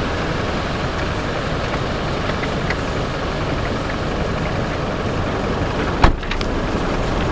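A vehicle's engine idling steadily, with one sharp knock about six seconds in.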